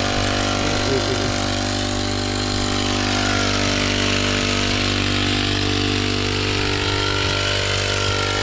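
Small engine of a motorized crop sprayer running steadily at a constant speed, with a steady hiss over its drone.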